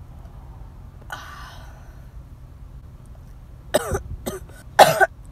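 A young woman's short wordless vocal sounds: a breathy exhale about a second in, then a few brief voiced sounds sliding in pitch near the end, over a low steady hum.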